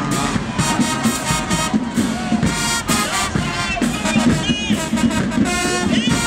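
Marching band playing: a brass section carries a melody over a steady drum beat.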